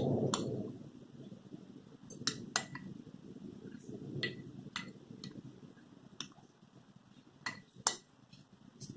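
A spoon clinking and tapping against a bowl about ten times, scattered irregularly, over soft scooping and scraping as soaked sabudana is added to the mashed potato.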